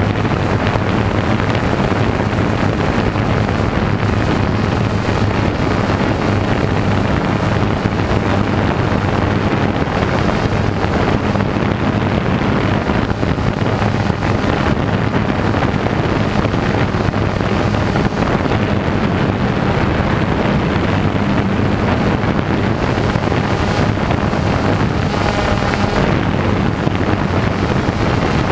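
Quadcopter drone's electric motors and propellers running steadily in flight, a constant hum with wind noise on the camera's microphone.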